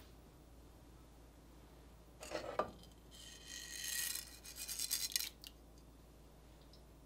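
Black peppercorns tipped from a small clay dish, pattering onto beef tongue and into a stainless steel stockpot for about two seconds. A brief scrape comes just before.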